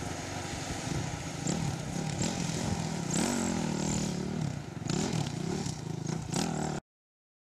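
Iveco Daily 49-10 van's engine revving up and down as the van is driven balanced on two wheels, with scattered sharp clatters. The sound cuts off abruptly near the end.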